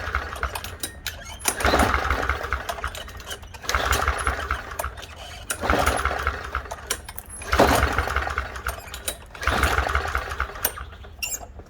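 Walk-behind lawnmower engine being pull-started, about six pulls of the recoil cord roughly two seconds apart. Each pull cranks it briefly but it does not keep running: the first hard start of an engine that was fogged for storage.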